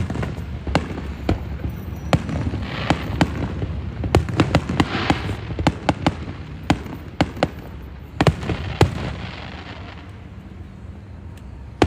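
Aerial fireworks display: a string of sharp bangs and cracks, with two stretches of crackling about three and five seconds in. The bangs thin out and grow quieter after about nine seconds.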